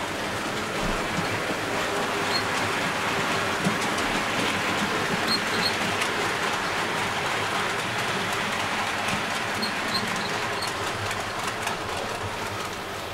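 00 gauge model trains running along the layout's track: a steady rolling rumble of wheels and motors, a little louder in the middle, with scattered light clicks.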